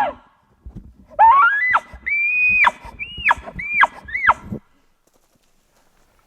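Elk bugle: a whistled note climbs in steps to a high pitch and is held, then breaks into three short arching notes, ending about four and a half seconds in.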